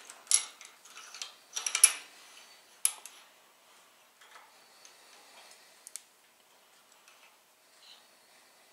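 Light metallic clicks and taps from steel V-blocks, a clamp and an alignment pin being handled on a milling machine table. A few sharp clicks come in the first three seconds, then only faint scattered ticks.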